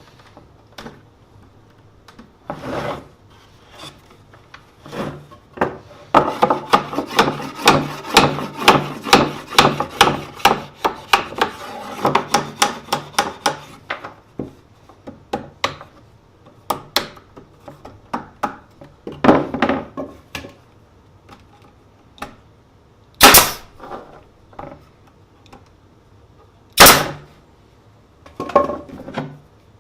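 Wooden parts of a beehive bottom board being worked by hand: several seconds of quick rubbing and scraping strokes on wood, then scattered single knocks, two of them sharp and loud.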